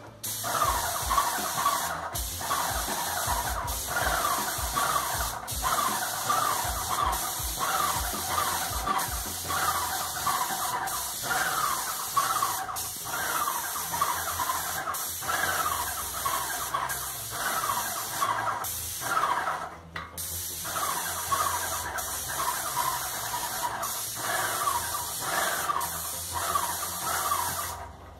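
Graco Magnum LTS 15 airless paint sprayer spraying paint onto a wall: a steady spray hiss with a falling squeal that repeats about twice a second. It breaks off briefly about two-thirds through.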